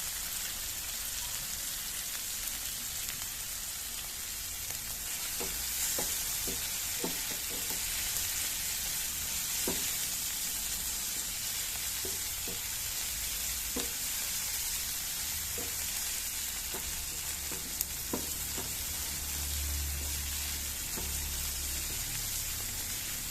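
Shrimp, spice paste and large green chilies stir-frying in hot oil with a steady sizzle. From about five seconds in there are scattered short knocks of the spatula against the pan.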